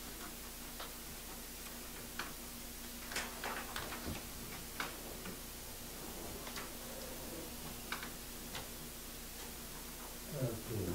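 Scattered light clicks and taps of pens and paper on a meeting table, irregularly spaced with a small cluster about three to five seconds in, over a steady electrical hum.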